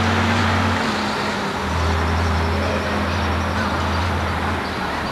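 Motor grader's diesel engine running with a steady low drone. The drone drops out for under a second near the start, then returns, over a constant hiss.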